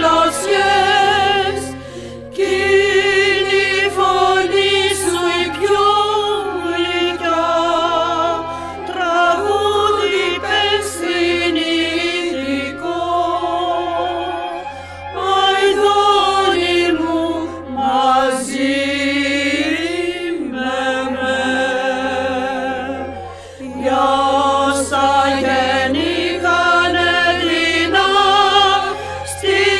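A choir singing a choral ode with vibrato over a steady low drone, the phrases broken by a few brief pauses.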